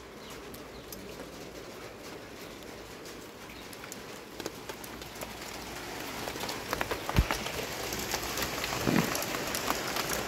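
Rain falling steadily and getting heavier, with individual drops ticking on nearby surfaces and a few louder knocks.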